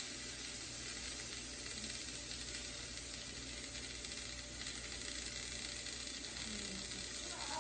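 Steady, even sizzling from frying pans on a stove: butter and freshly poured olive oil heating in one pan while green beans cook in another.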